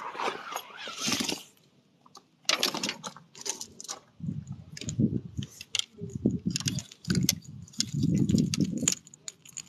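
Handling noise from fishing rods and tackle being pulled out of a car: irregular rustling with scattered light clicks and knocks, pausing briefly about a second and a half in.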